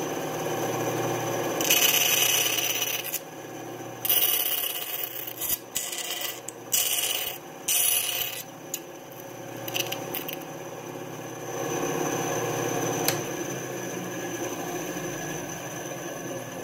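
Benchtop bandsaw running steadily, its blade cutting into lite plywood wing rib blanks in several short bursts of rasping between about two and eight seconds in.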